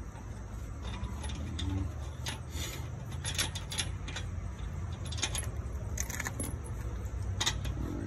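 Lug nuts clinking as they are worked off a wheel by hand: several sharp metallic clicks and jingles scattered through, over a low steady hum.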